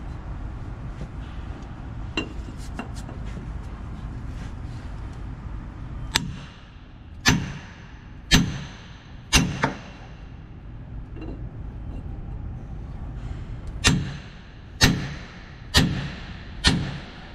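Hammer striking a steel pipe used as a driver to seat a new ball bearing in a Hale fire pump's bearing housing. Blows land about a second apart, a few, then a pause of about four seconds, then four more, each with a short metallic ring.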